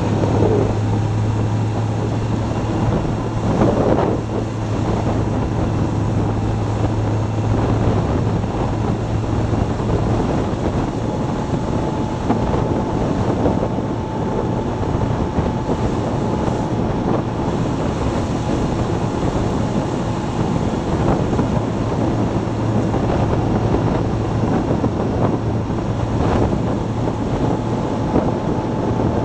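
Motorcycle riding on a wet road: a steady rush of wind over the microphone, with the engine's low hum running underneath for much of the time.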